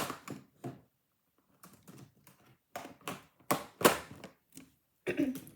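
Handling noise: irregular clicks and taps of small hard objects being picked up and moved about, with a pause about a second in and two louder knocks near the four-second mark.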